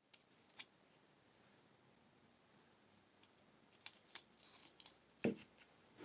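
Sparse light clicks and taps of small jewelry-making items (pearls, chain, wire or tools) handled on a work surface, with one louder knock about five seconds in.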